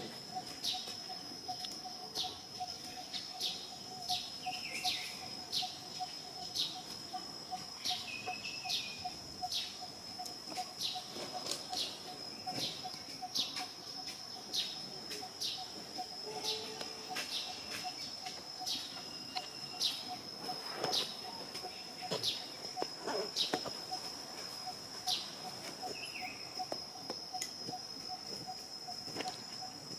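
Insects trilling: a steady high-pitched tone and a lower pulsing buzz, with short bird chirps repeating about once a second.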